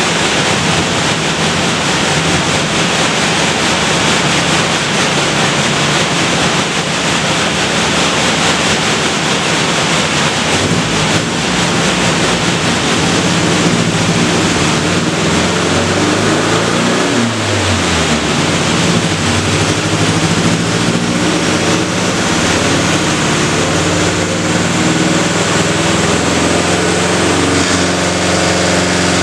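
1977 Datsun 620 pickup's four-cylinder engine running hard on a chassis dyno on a straight shot of nitrous, with no tuning and no oil pressure. Revs fall away and climb again about two-thirds of the way in.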